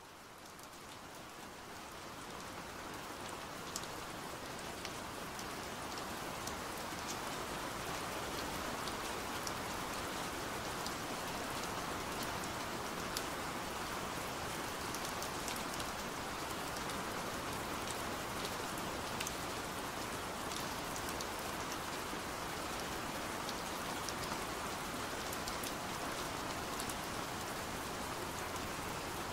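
Steady rain falling on a window pane, with scattered sharp ticks of single drops; it fades in over the first few seconds and then holds level.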